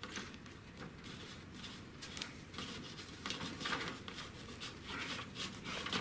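Faint handling noise of a plastic MC4 solar connector on a PV cable being worked by hand: light rubbing with scattered small clicks and ticks.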